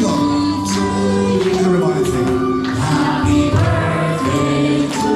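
Karaoke music with singing voices holding long notes.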